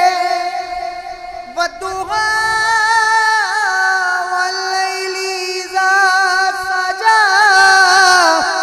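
A man singing a Punjabi naat into a microphone, drawing out long, high held notes with wavering ornaments, with a brief break about two seconds in.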